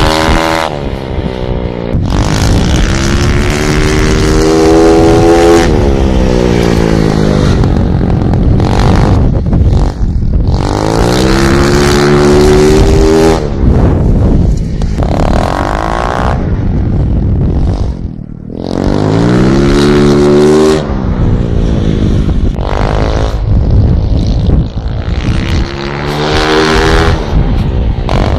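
125 cc speedway motorcycle engine running hard as the bike laps the track: the revs climb in pitch, hold, then fall away, over and over about every seven or eight seconds.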